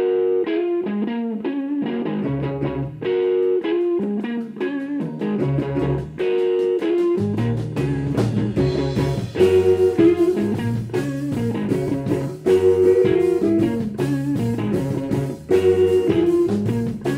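Rock band playing a song's instrumental intro live: a picked electric guitar figure first, then bass and drums come in about halfway through and the band plays on together.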